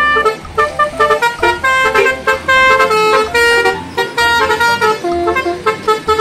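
Telolet bus horn on a coach playing a fast melody: a run of short horn notes at shifting pitches, several tones sounding together, with a couple of longer held notes about halfway through.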